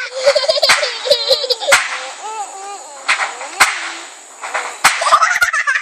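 A rapid series of sharp clicks and cracks, with high, wavering vocal sounds over them.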